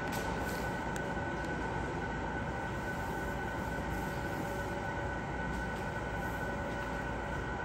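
Steady mechanical hum with a constant high whine over it, unchanging throughout.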